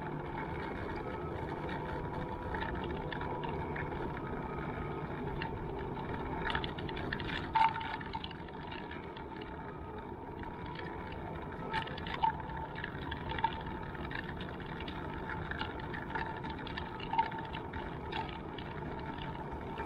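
Steady outdoor background rumble with a faint constant tone running through it and a few scattered short ticks.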